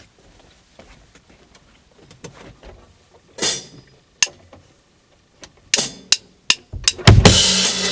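Scattered single hits on a Pearl drum kit, a few seconds apart, then about seven seconds in the drummer launches into loud full-kit playing with bass drum and cymbals.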